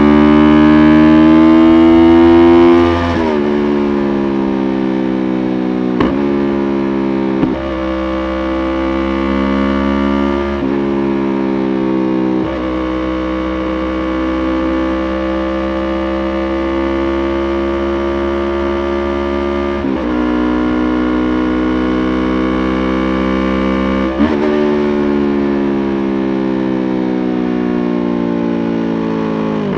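Yamaha YZF-R3's 321 cc parallel-twin engine under way. Its note climbs in pitch and then drops sharply at each gear change, several times through the stretch, with a longer steadier run in the middle.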